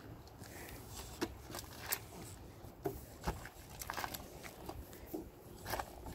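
Slow, uneven footsteps and the tip of a walking cane tapping on an asphalt driveway: scattered sharp clicks, irregularly spaced.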